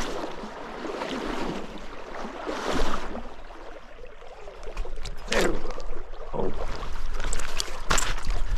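Stream water sloshing and splashing close to the microphone, rising and falling, with a few sudden sharp splashes about halfway through and near the end.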